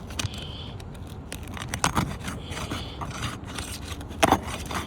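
Asphalt roof shingle tab being worked loose from its sealant strip, with irregular scraping and sharp crackling clicks as the seal lets go and the brittle shingle tears. The loudest crackle comes near the end.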